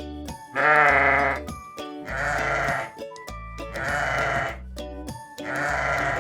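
Sheep bleating four times, each call about a second long and the first the loudest.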